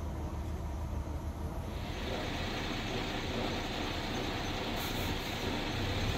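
Steady low rumble and hiss of a moving vehicle; the hiss grows stronger about two seconds in.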